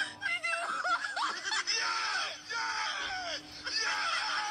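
A woman wailing and sobbing in a high, wavering voice, as if in pain.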